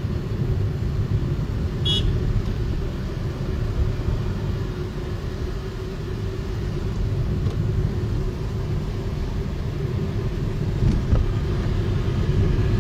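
A car driving on a wet road, heard from inside the cabin: a steady low rumble of engine and tyres. A brief high-pitched toot sounds about two seconds in.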